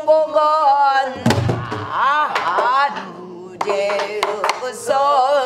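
A woman singing in pansori style, holding long drawn-out notes that waver in pitch, to the strokes of a buk barrel drum. A few drum strokes fall in the second half.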